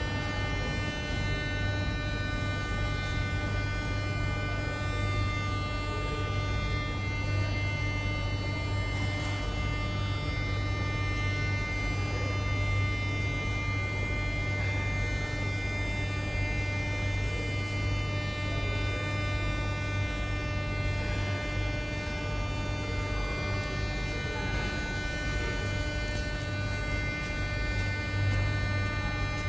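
81-717.6 metro train standing at the platform with its doors open, its electrical equipment giving off a steady low hum and a high whine of several steady tones.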